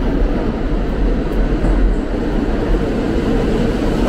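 New York City subway N train pulling into the station, its wheels on the track giving a loud, steady rumble.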